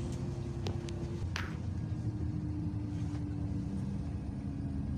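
Steady low rumble of a city bus, heard from inside the passenger cabin. A faint steady whine sits over it and drops slightly in pitch about a second and a half in. A few light clicks come in the first second and a half.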